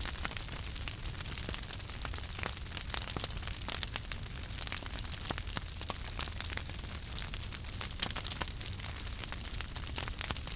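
Wood fire crackling: irregular sharp pops and snaps over a steady low rumble and hiss of burning.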